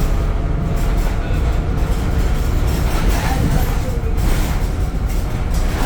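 Temsa Avenue LF 12 city bus with a DAF engine and ZF gearbox running: a steady, heavy low rumble with road noise.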